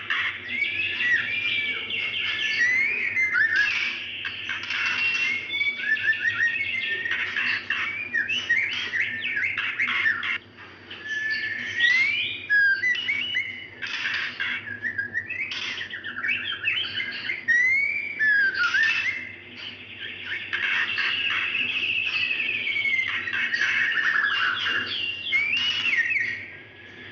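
Female white-rumped shama (murai batu) calling to attract a male, in a nearly continuous run of short rising and falling whistled notes mixed with harsh chirps, with brief pauses about ten and nineteen seconds in.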